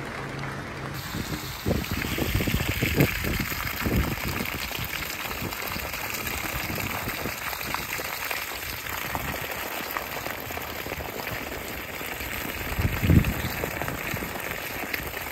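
Dirty, foamy carpet-cleaning waste water gushing from a hose onto dry leaves, a steady splashing pour with a few louder surges, the loudest near the end.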